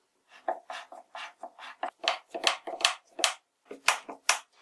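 A string of short, irregular scraping and rubbing sounds from hand work: a melamine-topped table being fitted onto a wooden frame, and a screw being turned into it by hand with a screwdriver.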